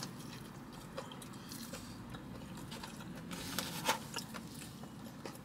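A person biting into a chicken sandwich and chewing, with scattered small mouth clicks, a cluster of them about three and a half to four seconds in.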